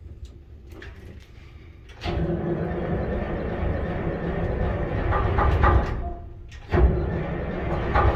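Detroit Diesel boat engine being started: it turns over and runs from about two seconds in, drops away briefly just after six seconds, then comes back in louder near the end.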